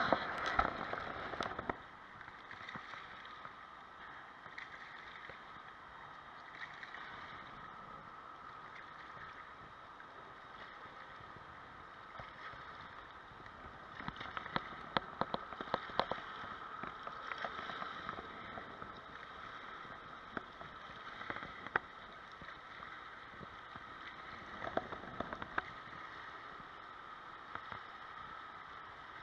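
Faint steady outdoor hiss of a riverbank, broken by scattered sharp clicks and knocks as the camera is handled and moved over the rocks, mostly about halfway through and again later on.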